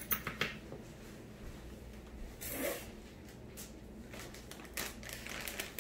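Faint handling sounds of makeup tools: a few small clicks and taps as a brush is worked in an eyeshadow palette and brought to the eye, with a short breath-like sniff about two and a half seconds in.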